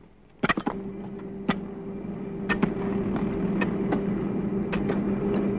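A machine's engine running steadily with a low hum, and sharp clanks about once a second.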